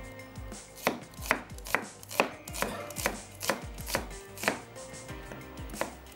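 A kitchen knife slicing a red onion on a wooden cutting board, the blade knocking sharply on the board about twice a second.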